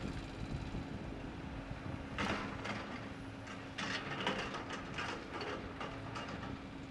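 Caterpillar 315C hydraulic excavator working: its engine runs with a steady hum, and two short spells of louder clattering noise come about two seconds in and again around four seconds.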